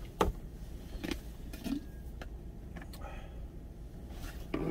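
A few sharp clicks and clinks of small stainless steel lunch containers being handled, the loudest one just before the end, over a steady low hum.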